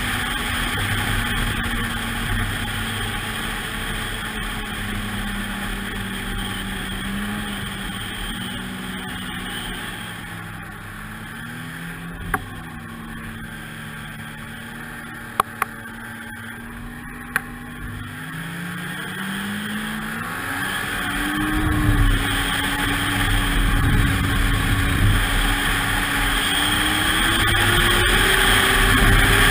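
Ski-Doo snowmobile engine running under way. It eases off and quietens through the middle, with a few sharp clicks, then accelerates again, its pitch climbing and getting louder through the second half.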